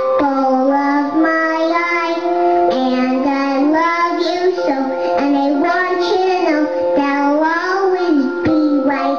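A young boy singing to a musical backing, his voice holding notes and sliding up and down between phrases, over steady sustained backing tones.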